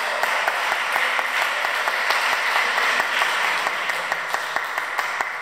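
Small audience applauding, with individual handclaps standing out, easing off slightly near the end.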